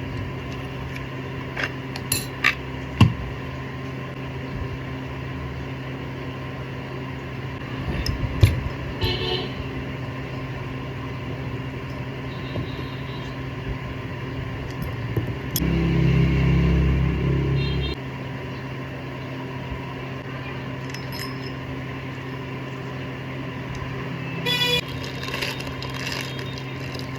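Grinder repair sounds: scattered metal clicks and taps of parts being handled over a steady electrical hum, with a louder low hum for about two seconds midway.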